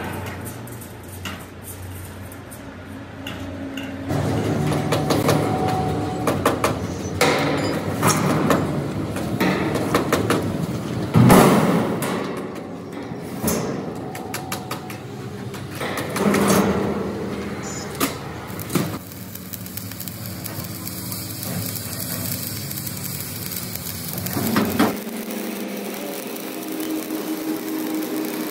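Irregular metal knocks and clanks from hammer work on a welded sheet-steel fuel tank, some blows loud and sharp, quieter toward the end.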